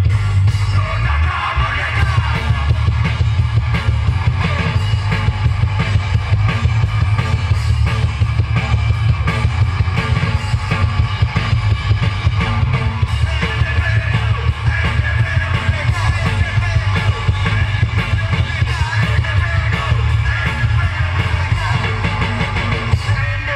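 Live heavy rock band playing loud: a drum kit pounding with crashing cymbals under the full band, and a vocalist shouting and singing over it.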